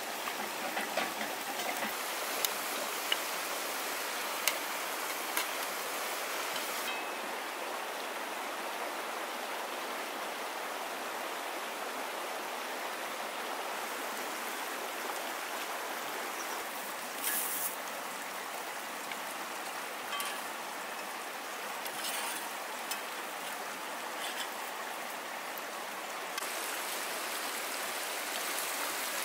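Steady rushing of a flowing river, with a few sharp light clicks in the first several seconds and a couple of brief louder knocks later.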